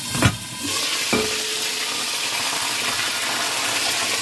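Oil sizzling steadily as a milkfish (daing na bangus) fries in a pan, with a sharp knock about a quarter second in and a softer one about a second in.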